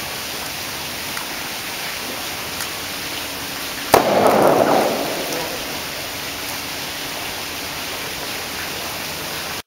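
A dry-ice bomb in a plastic water bottle bursts with one sharp bang about four seconds in, followed by a second or so of rushing noise that dies away, as the pressurised carbon dioxide escapes. A steady hiss lies under the rest.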